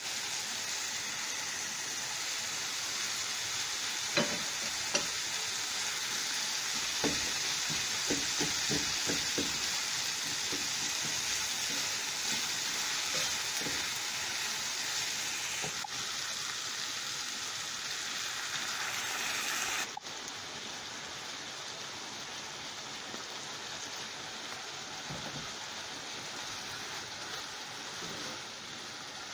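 Yardlong beans and dried fish sizzling as they are stir-fried in a nonstick frying pan, with a wooden spatula clicking and scraping against the pan, most often between about four and ten seconds in. The sizzle starts suddenly and drops in level about two-thirds of the way through.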